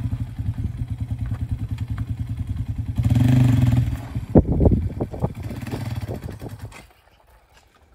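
An engine running with an even, rapid pulsing. It swells louder about three seconds in, a few sharp knocks follow, and then the engine sound falls away suddenly about seven seconds in.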